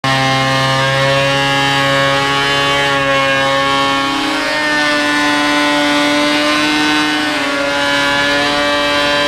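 Makita KP312 12-1/4" electric power planer running steadily, its pitch rising slightly about four seconds in.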